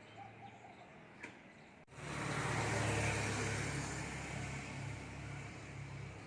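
Quiet, with a dove cooing and a brief bird chirp. Just under two seconds in, a motor vehicle suddenly comes in loud close by, its engine hum and road noise slowly fading away.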